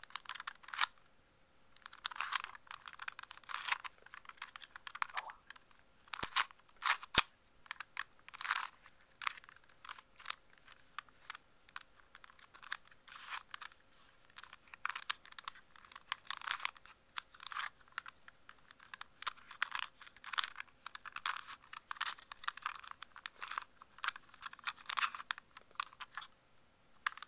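Plastic Dino Cube being twisted by hand: runs of quick clicks and scrapes as its corners turn, broken by short pauses.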